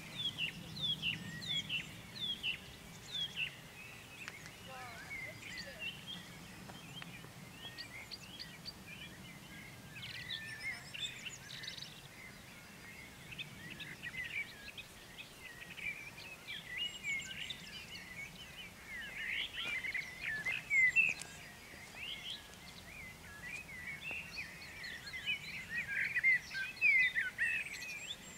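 Several birds singing, with many short chirps and trills overlapping, over a faint low background rumble.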